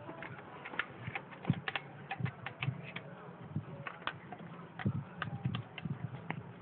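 Irregular light metallic clicks and taps, about fifteen in all, from a thin metal rod being worked in an open spark-plug hole of a Toyota 3T engine.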